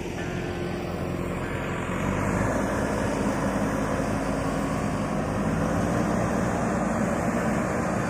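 An engine running steadily, growing louder about two seconds in.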